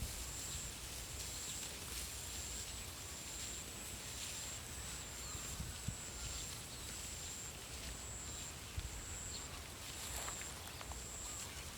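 Rural field ambience: a high, pulsing chirp repeats about once a second over a low rumble of wind, with a few soft thumps.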